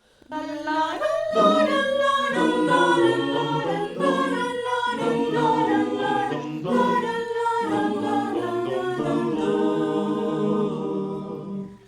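Mixed choir singing a cappella in five parts, holding chords that change every second or so.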